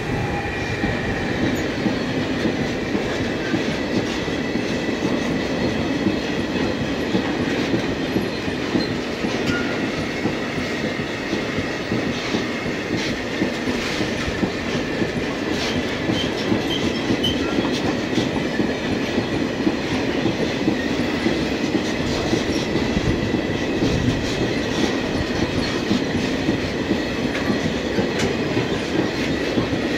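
Freight train of empty two-deck car-transporter wagons rolling steadily past at close range, its wheels running and clattering over the rails, with a faint steady high-pitched wheel squeal above the rumble.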